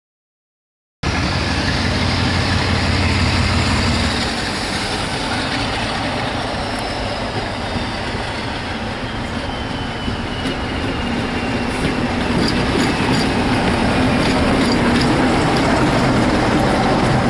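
A train running past close by, a steady dense rumble starting suddenly about a second in. A deep hum fades about four seconds in, a faint high tone slowly falls through the middle, and sharp wheel clicks over the rail joints come thick in the second half.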